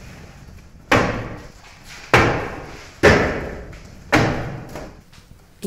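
Four thuds about a second apart, each dying away quickly: wicker proofing baskets turned upside down and knocked down onto a wooden bread peel, tipping the proofed loaves of dough out.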